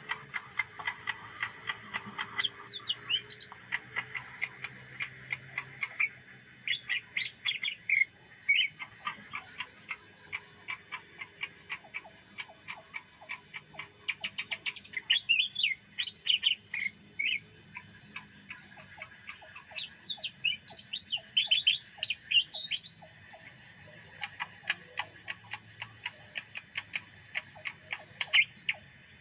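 Small songbird singing a long continuous run of rapid high chirps and trills, with louder bursts of song every several seconds over a steady stream of quick ticking notes.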